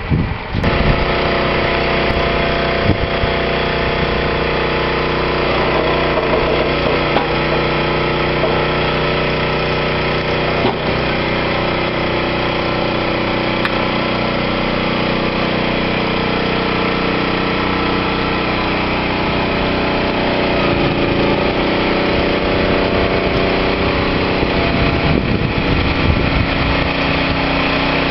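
Engine of the vehicle towing a boat trailer, running steadily as the trailer carries a sailboat down the ramp into the water. Its note shifts slightly about twenty seconds in.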